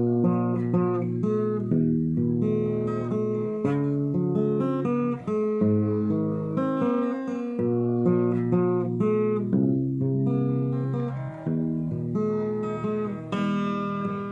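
Acoustic guitar played solo in an instrumental break between sung lines, chords picked and strummed in a steady rhythm with no voice.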